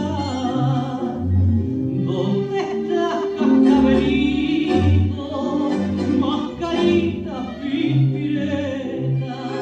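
Tango music with a singing voice over a bass marking a steady beat about twice a second.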